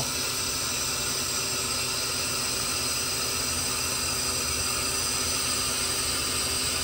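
Handheld laser welder with wire feed running a bead on aluminium sheet: a steady, even hiss with a faint hum underneath.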